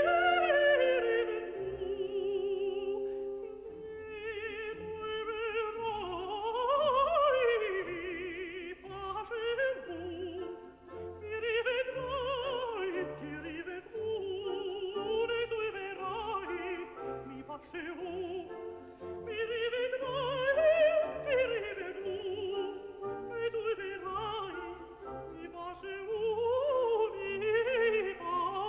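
A high solo voice singing an ornamented operatic aria with wide vibrato and quick running passages, over an orchestral accompaniment.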